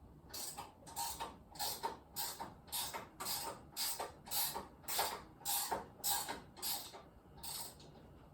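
A hand tool worked in quick repeated strokes, each a short rasping, creaking sound, about two a second. The strokes stop near the end.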